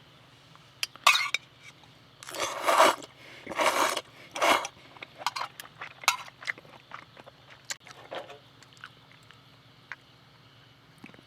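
Handling noises: several short scraping, rustling strokes in the first half, then scattered light clicks and knocks that thin out toward the end.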